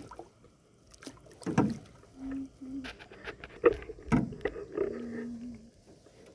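Canoe paddling: paddles dipping in the water and knocking against the canoe's hull, a few irregular dull knocks about one and a half, three and a half and four seconds in.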